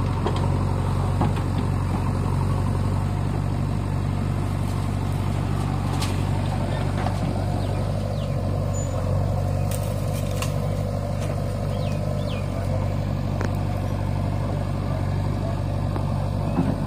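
Steady diesel engine running: the Swaraj 744 FE tractor's three-cylinder diesel standing at idle, with a JCB backhoe loader working alongside. A few sharp clanks come around the middle as the loader's bucket tips soil into the tractor trolley.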